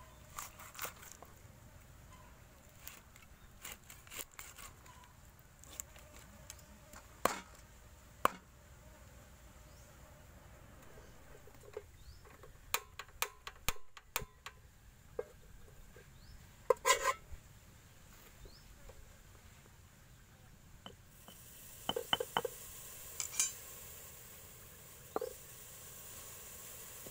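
Irregular knocks of a knife chopping through fish on a wooden cutting board, then scattered clinks and taps of an aluminium cooking pot; a faint steady hiss comes in near the end.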